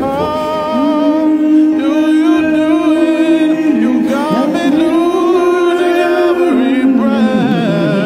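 A man singing long, wordless held notes with vibrato, sliding and running between pitches, over a karaoke backing track.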